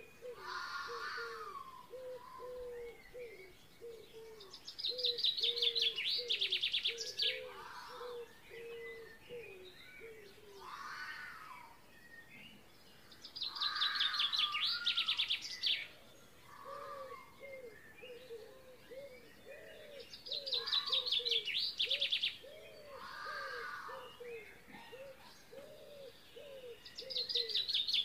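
Birds singing and calling: a loud high trill lasting about two seconds comes back about every seven seconds, among shorter calls and runs of low, evenly repeated notes.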